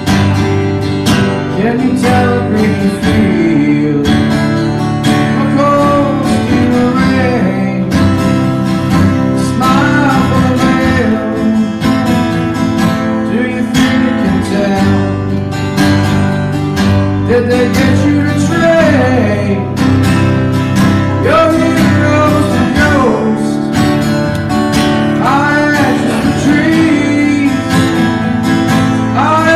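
Acoustic guitar played live, with a man singing over it.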